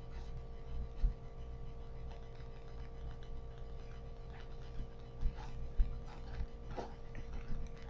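Steady low electrical hum of the recording, with a few dull thumps, about a second in and twice more past five seconds, from footsteps of people walking past.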